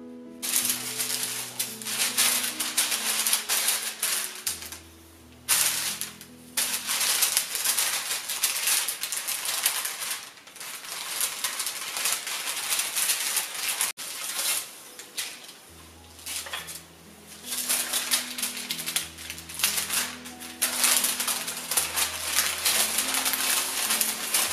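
Baking paper crackling and rustling under a wooden rolling pin as dough is rolled out between the sheets, in stretches of rolling with short pauses. Soft background music plays underneath.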